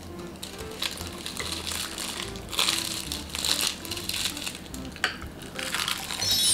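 Crisp roasted seaweed (nori) crackling and crunching in irregular bursts as baked sushi is wrapped in it and chewed. A bright chime starts ringing right at the end.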